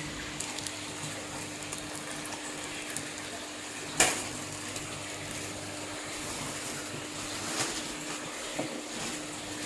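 Aquarium water running steadily with a constant low hum, as from the tank's filter. One sharp knock about four seconds in, with a few faint ticks.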